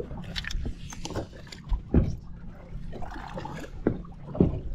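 Water lapping against a fishing boat's hull, with a few dull knocks on the boat, the loudest about two seconds in and another near the end.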